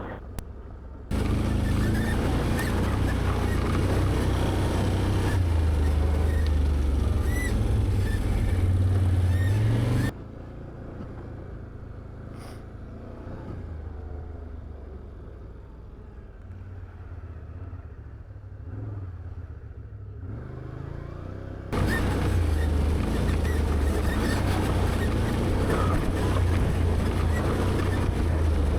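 Can-Am Outlander 850XT ATV's V-twin engine running under throttle on a rough trail, its pitch rising and falling with the throttle. The level drops sharply about ten seconds in to a quieter, more distant engine sound, then jumps back up loud about twenty-two seconds in.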